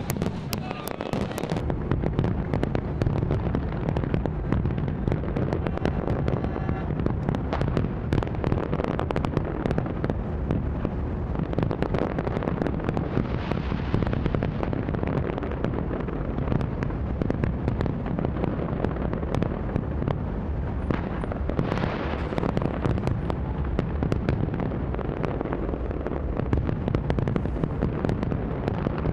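Large fireworks display: a dense, continuous crackle of pops and bursts over a steady low rumble that sets in about two seconds in.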